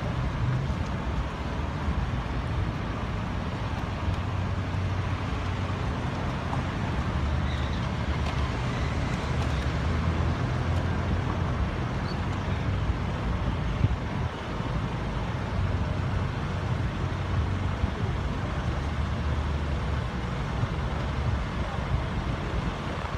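Road traffic: car engines idling and running in the street, a steady low rumble.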